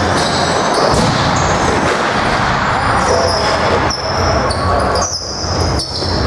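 Box lacrosse game play in an echoing arena: repeated sharp knocks of the ball and sticks over a steady din.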